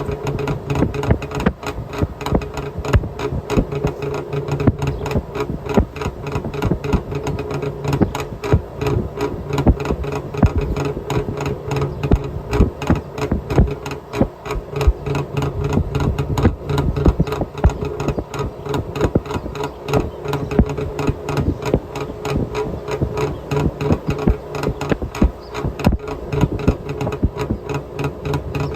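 Trabant 601's two-cylinder two-stroke engine running steadily, its exhaust a rapid, even train of pulses. Recorded right at the tailpipe, so the exhaust pressure hits the microphone and the sound comes through distorted.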